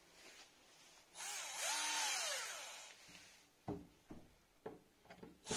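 Bosch 12-volt cordless drill-driver running for about two seconds, its motor whine rising then falling as the trigger is squeezed and eased, backing out a screw. A few short clicks follow, and the drill starts up again at the very end.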